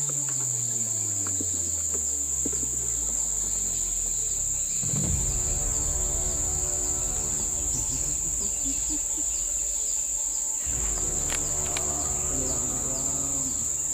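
Insects buzzing in a steady, unbroken high-pitched drone. Under it runs a low droning hum whose pitch falls over the first few seconds and then holds steady.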